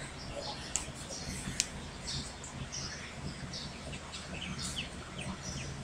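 Small birds chirping in the background, many short high chirps, over a low steady hum.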